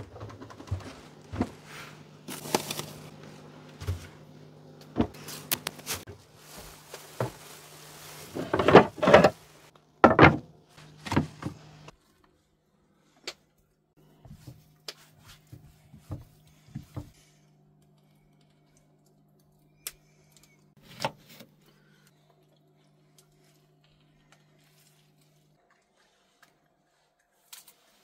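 Kitchen handling sounds at a small counter as çiğ köfte wraps are made: knocks, clatter and rustling for about the first twelve seconds, loudest around nine to ten seconds in, then only a few scattered light taps over a faint steady hum.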